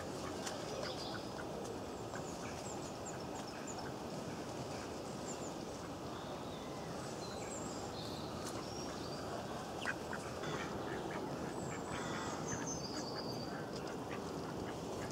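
Mallard ducks quacking, with small birds giving short high chirps over a steady outdoor hiss.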